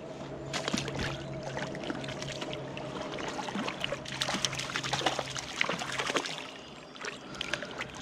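Creek water trickling with small irregular splashes from a hooked trout being played at the surface and drawn to the net, over a faint steady hum.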